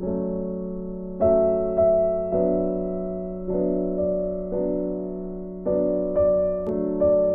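Background keyboard music: soft piano chords, a new one struck about every second, each ringing on and fading.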